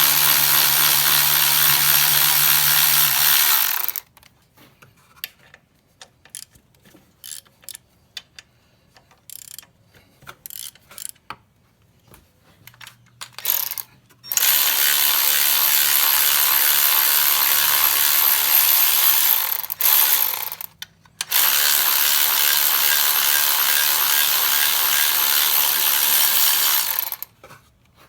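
A power tool runs for several seconds at a time, three times over, loosening the alternator bracket bolts. In the quiet stretches between runs there are light clicks and knocks of tools on metal.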